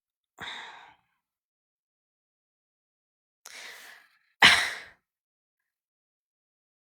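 A person sighing or exhaling heavily close to the microphone, three breaths: one right at the start, then two in quick succession about three and a half seconds in, the last the loudest.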